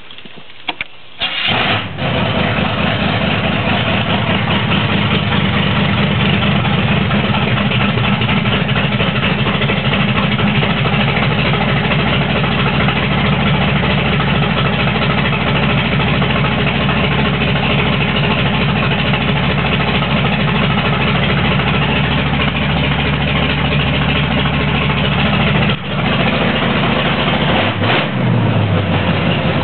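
Small-block Chevy 350 V8 with open headers cranking and firing up about two seconds in, then idling loudly and steadily. Near the end the pitch rises briefly.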